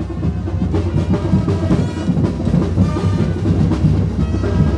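Live procession music: drums beating steadily, with held instrument notes over them.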